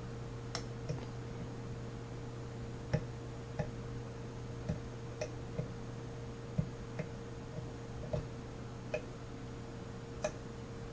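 Light, irregular clicks of a lock pick and tension wrench working the pin tumblers of a Master Lock 150 padlock, about a dozen spread unevenly through the stretch, over a steady low hum.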